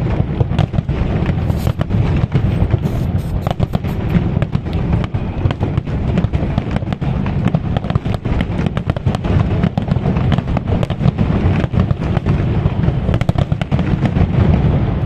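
Aerial fireworks display: many shells bursting in rapid, overlapping succession, a continuous barrage of sharp bangs over a heavy low rumble.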